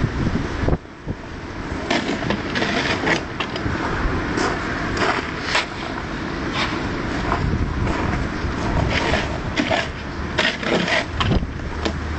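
Irregular scraping and sharp knocking of hard material on hard ground, typical of kerbstones and tools being shifted while laying a driveway edge.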